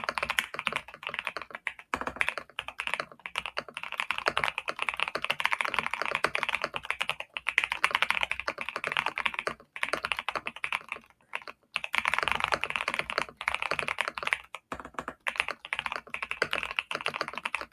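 Continuous typing on a GMK67 mechanical keyboard with factory-lubed Vertex V1 switches and Cherry Ember keycaps: a dense, rapid run of key clacks broken by a few short pauses, about two seconds in and again near ten, eleven and fifteen seconds.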